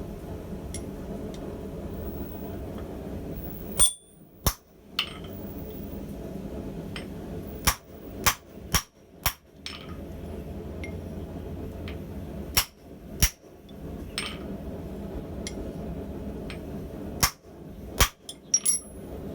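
Blacksmith's hammer striking hot steel on the anvil: about a dozen sharp, ringing blows in groups of two to four, over a steady low background rumble.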